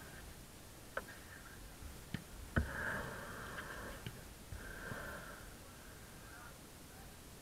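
A few sharp knocks, the loudest about two and a half seconds in, with faint distant voices in between.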